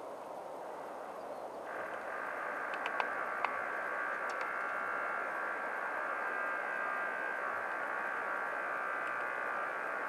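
A few sharp taps, typical of a great spotted woodpecker pecking at suet in a wire cage. They sit under a steady, high-pitched hum of several tones from an unseen source, which comes in about two seconds in and holds, over a background hiss.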